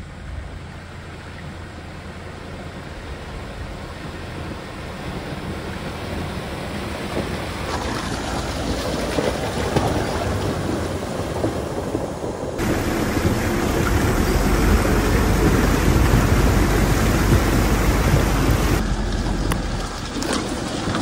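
Toyota Fortuner 3.0 D-4D turbodiesel driving through a shallow, rocky stream, its tyres splashing and churning the water. The sound grows louder as the vehicle comes close, with a deep engine rumble strongest in the second half.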